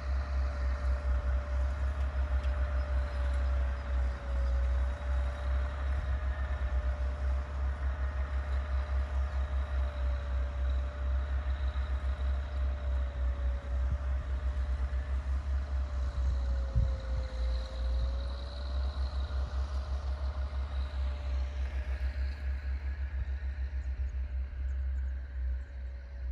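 A distant tractor engine running steadily, with a faint whine that wavers slightly in pitch. Wind rumbles on the microphone throughout and is the loudest sound.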